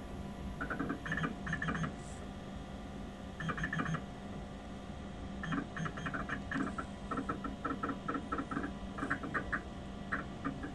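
A 1980s Sanyo 8086 PC's 20 MB hard disk drive chattering as its heads seek while MS-DOS loads: bursts of quick, buzzy ticks, sparse at first and then in a long rapid run, over the computer's steady hum.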